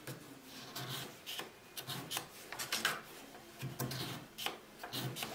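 Round file rasping inside a narrow slot in a pine board: short, irregular scratching strokes, roughly two a second, as the slot is cleaned out and enlarged.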